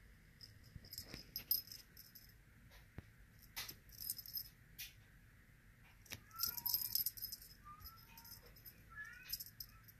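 A small jingling rattle shaken in short bursts, bright metallic jingles coming in four clusters with a few sharp clicks between them.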